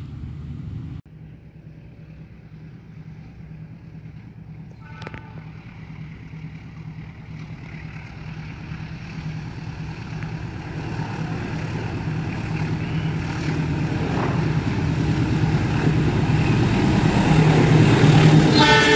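A train approaching, its engine drone and rail noise growing steadily louder. A short horn toot sounds about five seconds in, and a loud train horn blast starts right at the end.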